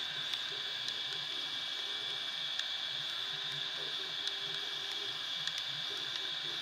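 3D printer printing: a steady fan hiss, with the stepper motors sounding in short tones that shift in pitch as the print head moves, and a few faint ticks.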